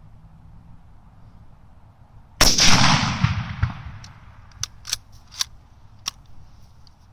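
A single shot from a Mosin-Nagant M38 carbine in 7.62x54R: one loud bang about two and a half seconds in that rolls away in echoes for over a second. A handful of sharp clicks follow as the bolt is worked.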